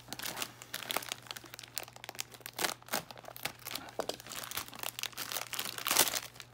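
Foil pouch crinkling and crackling as it is pulled open and crumpled by hand, in irregular bursts with the loudest crackle about six seconds in.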